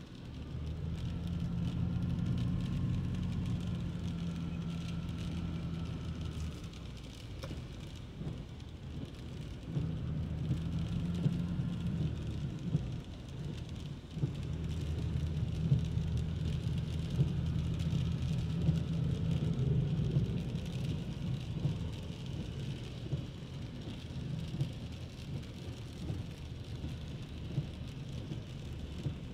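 Rain falling on a city street with motor vehicles passing, their engines rising for several seconds at a time, three times over, against a steady hiss of rain.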